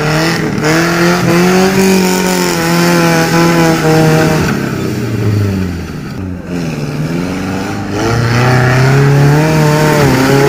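Suzuki Jimny's engine revving hard under load as it claws up a steep, muddy slope. The pitch climbs and holds high, drops away about halfway through, then rises again near the end.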